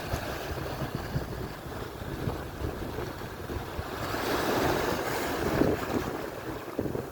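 Ocean surf washing onto the shore, swelling louder about two-thirds of the way through as a wave breaks and rushes in. Wind buffets the microphone with a low rumble underneath.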